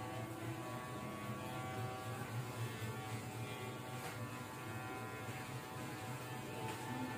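Electric dog-grooming clipper running with a steady buzz.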